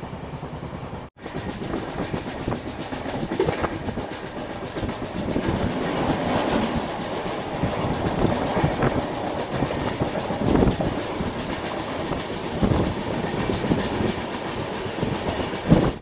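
Indian express passenger train running, heard from an open coach doorway: steady rumble and wind with the clickety-clack of wheels over rail joints.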